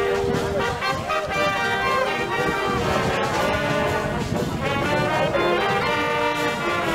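Traditional Bavarian brass band of trumpets and trombones playing a tune, with held notes moving from chord to chord.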